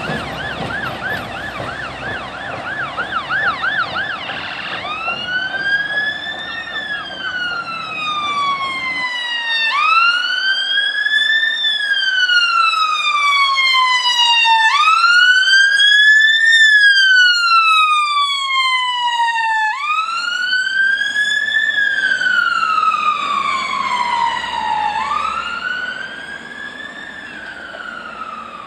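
Emergency vehicle siren. It starts with a fast yelp for the first few seconds, then switches to a slow wail that rises quickly and falls away about every five seconds. It grows louder toward the middle and fades near the end.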